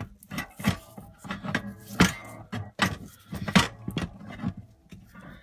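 Irregular metal knocks and clanks, about two a second, as the wood stove's housing is worked loose from its decorative housing; the loudest come about two seconds in and again past three and a half seconds, thinning out near the end.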